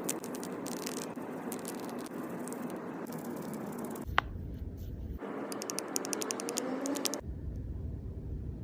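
Rapid clicking and rattling of small plastic toy parts or packaging being handled, with a sharp single click about four seconds in.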